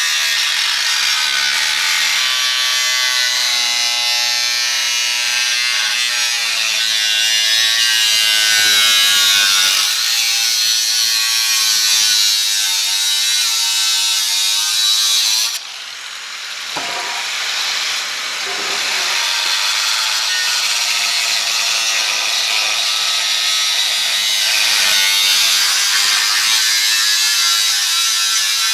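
Angle grinder with a cutting wheel slicing open the shell of a CTS-V muffler: a loud, steady, high-pitched grinding whose pitch wavers under load. It drops off sharply about halfway through, then picks up again.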